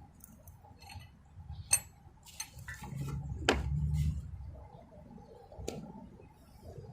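Metal hand tools clinking and clattering while someone rummages through them looking for a small ratchet: a handful of sharp clinks, the loudest about two seconds in, with low handling noise.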